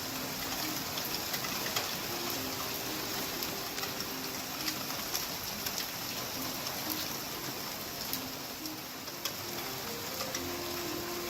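Heavy rain falling steadily, with many sharp drip ticks scattered through it.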